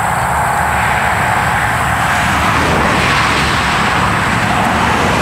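Steady road and wind noise of a car driving along, an even rushing hiss over a low rumble.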